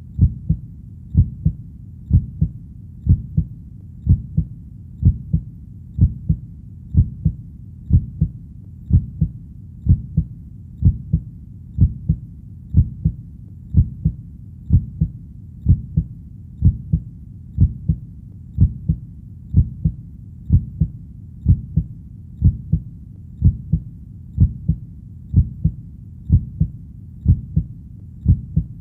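Heartbeat sound: deep double 'lub-dub' thumps repeating steadily at about one beat a second.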